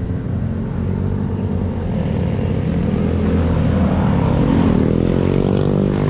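Several motorcycles and scooters riding past close by, their engines getting louder as they come up. About five seconds in, one motorcycle accelerates, its engine note rising in pitch.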